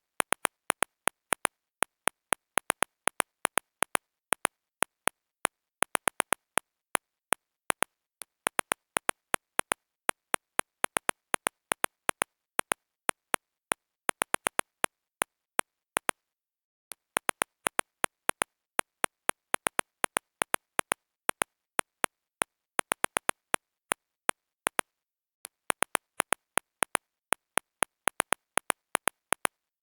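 Smartphone on-screen keyboard key clicks: a long run of short, sharp taps at an uneven typing pace, several a second, broken by brief pauses about eight seconds in, around sixteen seconds in and near twenty-five seconds in.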